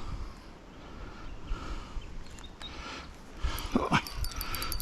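Quiet riverbank ambience with a few faint clicks and a brief animal call. Near the end a fishing reel starts clicking rapidly as a fish takes line.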